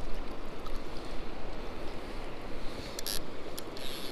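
River water rushing steadily, with wind rumbling on the microphone and a few short clicks about three seconds in.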